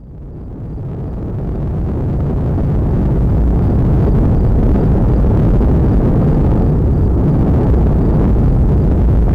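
Deep, steady rumble of the Cumbre Vieja volcano erupting, fading in over the first two to three seconds.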